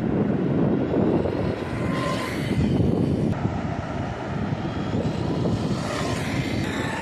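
Electric drive motor of a Xinlehong 9125 RC truck running on an 11.1 V battery, a whine that rises and falls in pitch as the truck is driven, over a steady low rushing noise.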